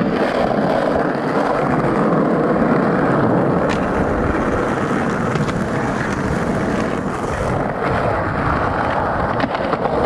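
Skateboard wheels rolling on the concrete of a skate bowl, a steady rumble, with a few faint clicks.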